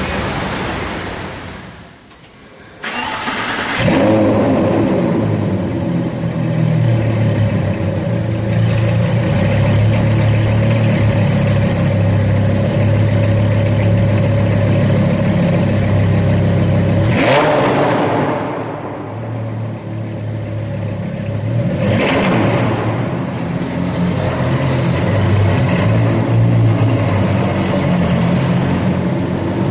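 Lamborghini Gallardo LP560-4 V10 with a Larini aftermarket exhaust starting up about three seconds in with a loud flare, then idling steadily, echoing in an underground car park. Two short, sharp bursts of revving come later.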